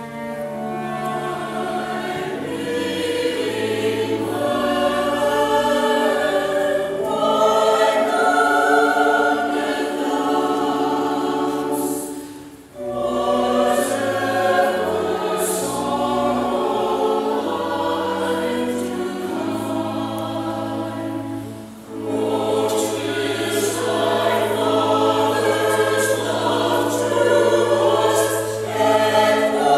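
Church choir singing long held notes, breaking off briefly twice between phrases.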